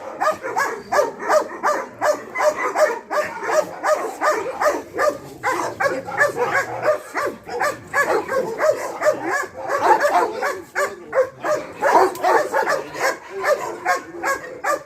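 Dogs barking continuously and rapidly, about three barks a second, the barks overlapping.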